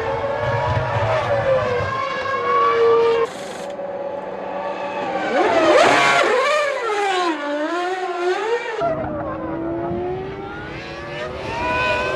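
1999 Formula One cars' 3-litre V10 engines running at high revs, their pitch climbing and falling with throttle and gear changes. The sound changes abruptly twice, and there is a steep rise and fall in pitch around the middle.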